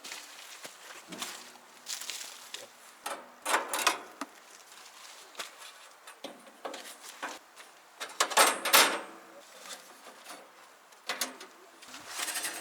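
Scattered clunks, rattles and scraping as parts of a band sawmill are handled during a blade change, loudest about three and a half seconds in and again about eight and a half seconds in.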